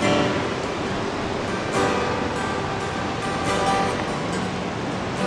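Acoustic guitar strummed, a ringing chord every second or two, over a steady wash of surf.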